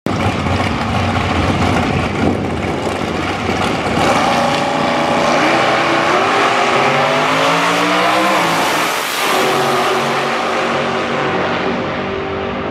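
Two front-engine dragsters on a drag run at full throttle: the engine pitch climbs steadily for several seconds as they accelerate down the track, then levels off and eases slightly as they pull away.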